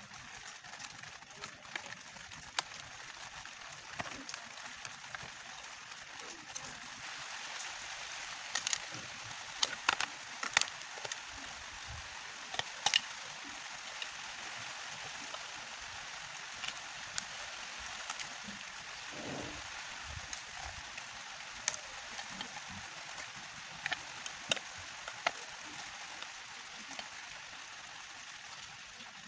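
Scattered sharp clicks and taps of a thin metal pry tool and fingers working on a tablet's plastic frame and circuit board, over a steady hiss. The clicks come thickest and loudest about 8 to 13 seconds in.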